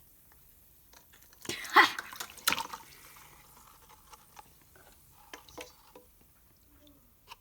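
Liquid splashing and dripping, loudest briefly between about one and a half and three seconds in, with a few sharp clicks, then only faint drips and ticks.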